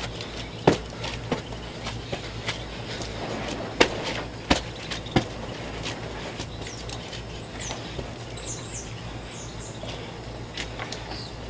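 Digging in wet, sticky clay with a shovel: a handful of sharp knocks and scrapes in the first five seconds. A bird chirps several times in the second half.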